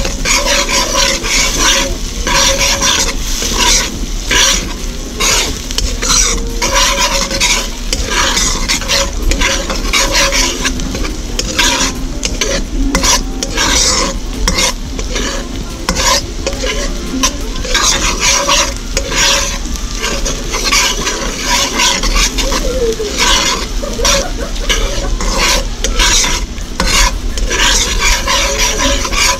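Metal ladle stirring and scraping chopped ingredients around a wok while they sizzle in hot oil. The scrapes come in frequent, irregular strokes over the steady sizzle.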